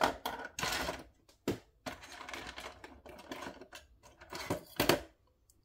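Hands handling small objects: rustling and scraping, with sharp clicks and knocks. The loudest click comes just before it falls quiet near the end.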